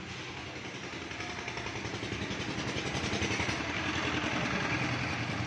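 Rumble of a passing vehicle, growing louder over the first few seconds and then holding steady.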